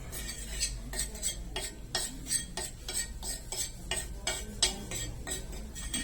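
A metal spoon scraping and clinking against a pan as it stirs a turmeric powder mix roasting on the stove, in a steady rhythm of about three strokes a second.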